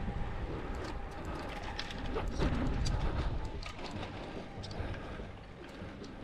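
Low wind rumble on a handlebar-mounted camera's microphone as a road bike climbs slowly, with scattered light clicks and ticks throughout.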